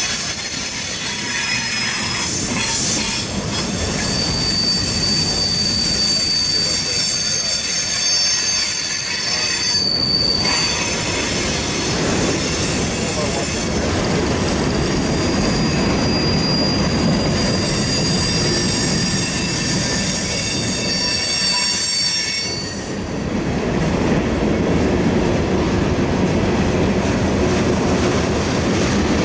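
A train rolling past on mountain track, its steel wheels squealing in several long, high, steady tones over the rumble of the cars.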